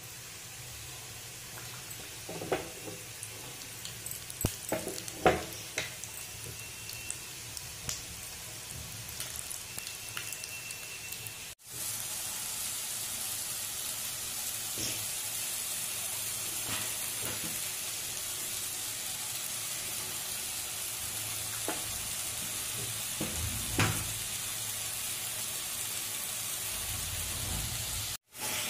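Food frying in ghee in a pan: a sizzle with scattered clicks and scrapes as dry nuts are stirred. About 11 seconds in it cuts to a steadier, louder, hissing sizzle of mashed pumpkin cooking with jaggery.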